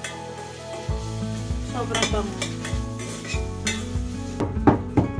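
Garlic and onion sizzling in oil in a stainless steel saucepan while a metal spoon stirs and scrapes the pan, the strokes quickening to about five a second near the end.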